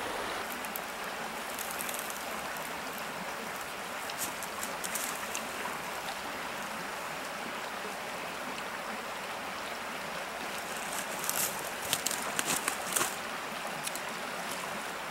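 Small mountain stream running over rocks in a steady, even wash, with a few short clicks near the end.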